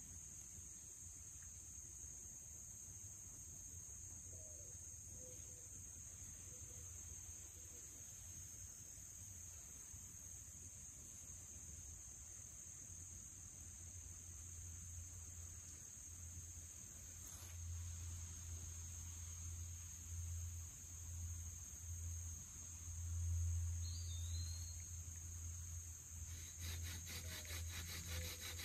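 Insects trilling steadily at a high pitch, with a low rumble that swells in the second half and a single short bird chirp. About two seconds before the end a fast rhythmic rubbing starts as a hand drill spins its basswood plug on a cedar hearth board.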